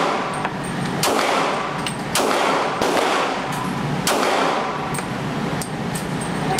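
Glock pistol firing in slow single shots, roughly one a second, each crack echoing off the walls of an indoor range, with fainter shots in between.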